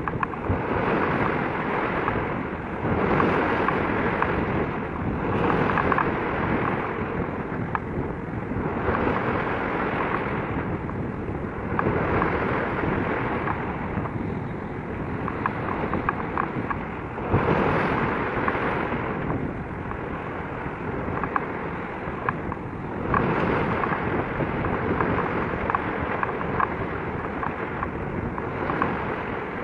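Wind buffeting the microphone over choppy harbour water, swelling and easing in gusts every few seconds, with small crackles of lapping water.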